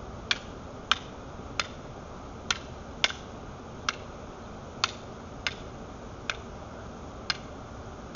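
Kali fighting sticks clacking together in a partner drill, about ten sharp strikes at an uneven rhythm.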